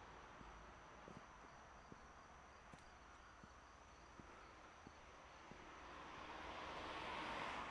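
Faint outdoor ambience: a steady hiss with scattered light clicks, swelling into a broad rush of noise over the last couple of seconds.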